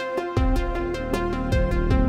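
Electronic background music with a steady beat and sustained synth tones; the bass is out at first and comes back in about a third of a second in.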